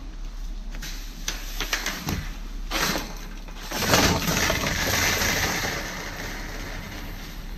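Welded wire mesh fence panels being handled, with light clicks and rustling, then a loud metallic clatter about four seconds in as a panel lands on the concrete path, its rattle trailing off over the next couple of seconds.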